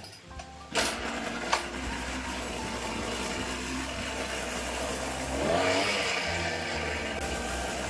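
Small engine of a power sprayer starting about a second in and running, its pitch rising as it speeds up around five and a half seconds in. It is running after a faulty diaphragm gasket that had kept it from starting was dealt with.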